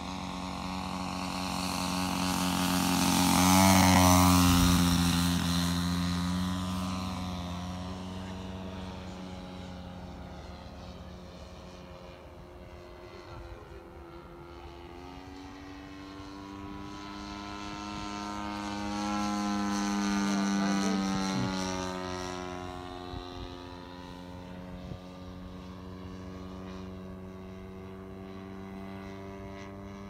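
Radio-controlled Junkers Ju 87 Stuka model plane droning overhead with its propeller. It makes two low passes: the loudest about four seconds in and a second one around twenty seconds. At each pass the pitch drops as the plane goes by.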